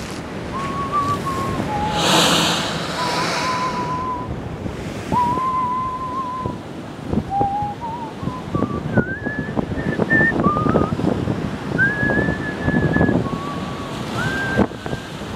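Sea surf breaking against a breakwater, with one wave crashing loudly about two seconds in. Over it, a person whistles a slow tune of held notes.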